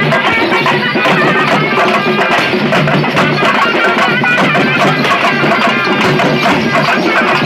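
Loud live traditional folk music: drums beating steadily with a held melody line over them.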